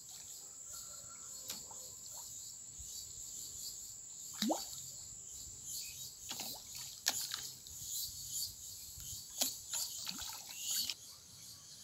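Small splashes and plops from tambaqui breaking the surface of a muddy fish tank, scattered through the second half, over a steady high-pitched buzz that stops about a second before the end.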